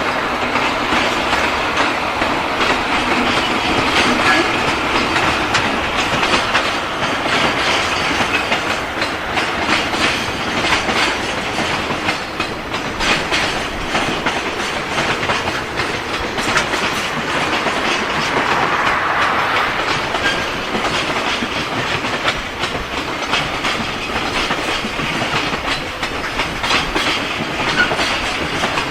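Freight train wagons rolling past steadily, their wheels clicking over the rail joints.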